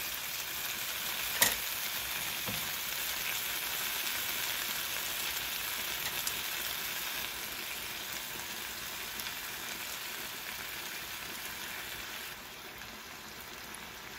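Vegetables sizzling and frying in a hot pan just after soy sauce is added, stirred with a metal spatula. One sharp clank about a second and a half in, and the sizzle eases a little near the end.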